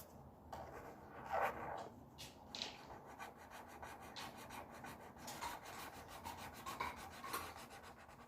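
Pen strokes scratching on a sheet of paper as a target is drawn: a few separate strokes, then quick repeated scribbling from about three seconds in.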